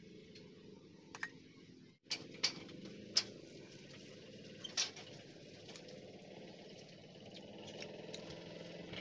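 Sharp clicks and taps of fingers and a small steel bowl against a metal plate as rice and fish curry are mixed by hand. A steady low hum runs underneath.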